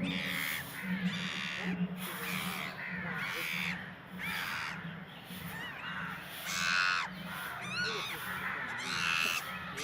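Repeated harsh animal calls, one every half second or so, over a steady low hum.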